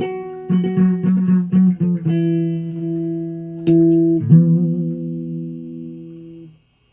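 A guitar played by plucking: a quick run of short notes, then a few longer notes that ring on and fade out about six and a half seconds in.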